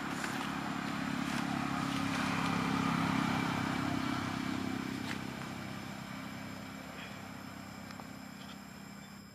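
A motor vehicle's engine hum, growing to its loudest about three seconds in and then slowly fading, as a vehicle passing at a distance.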